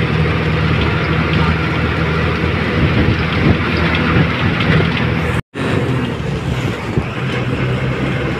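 Bus engine humming steadily with road noise, heard from inside the moving bus. The sound cuts out completely for a moment about five and a half seconds in, then carries on the same.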